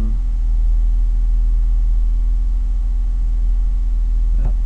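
Steady low electrical hum with evenly spaced overtones, holding at one level throughout.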